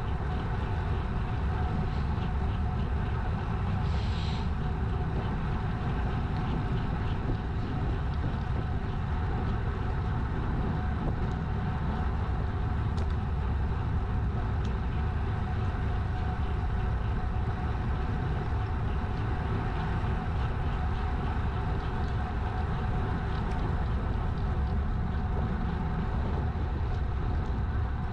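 Steady rush of wind and tyre noise from a road bicycle rolling along asphalt, with a deep rumble of wind buffeting the microphone.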